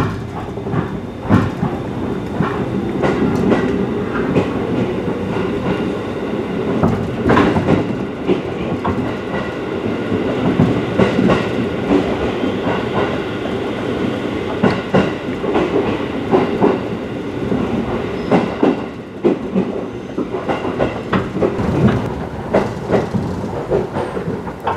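Ride noise inside a JR 211-series electric train on the move: a steady rumble with the clickety-clack of wheels over rail joints.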